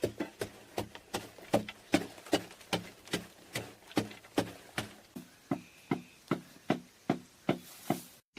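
Repeated hard strikes of a hand tool, about two to three a second in a steady working rhythm, each a short knock with a dull low thud behind it.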